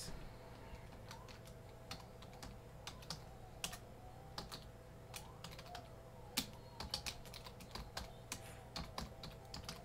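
Faint typing: irregular key clicks, several a second with short pauses, over a low steady hum.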